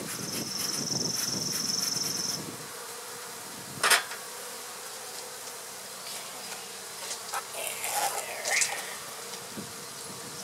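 Honey bees buzzing around an open hive. A single sharp wooden knock about four seconds in, and a cluster of knocks and scrapes near the end as a wooden hive box is handled and set on the stack.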